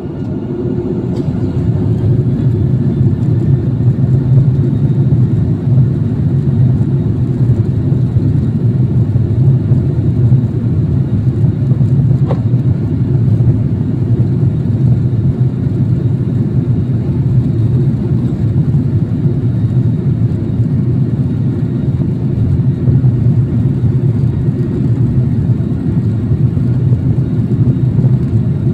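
Cabin noise of a Boeing 737-800 as its CFM56-7B jet engines spool up over the first few seconds and then hold a loud, steady, deep drone at high thrust during the takeoff roll.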